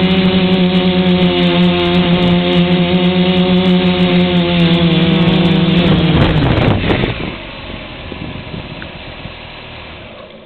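DIY X-frame quadcopter's four D2836-9 950kv brushless motors and 10-inch propellers hovering with a steady whine, heard close from the camera mounted on the craft. About six seconds in the pitch slides down and the sound drops away as the motors spool down on landing, leaving a fading whoosh.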